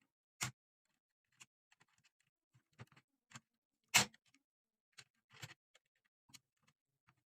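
Scattered clicks and knocks from parts being handled and set down while taking a Philips 406 apart. The loudest knocks come about half a second in and about four seconds in, with a small cluster near five and a half seconds.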